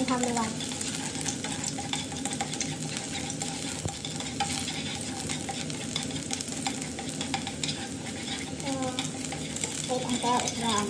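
Minced garlic sizzling in hot oil in a nonstick frying pan, stirred with wooden chopsticks that tick and scrape against the pan many times. The garlic is frying until it turns brown.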